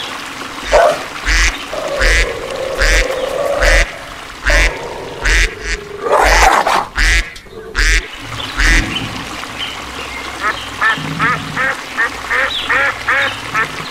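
Ducks quacking, with other animal calls mixed in. Near the end the quacks come as a quick run of short calls, about four a second.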